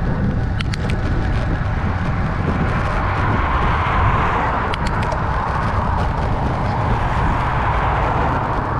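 Wind rushing over the microphone of a bike-mounted camera while riding on a road, with passing traffic swelling from about three seconds in.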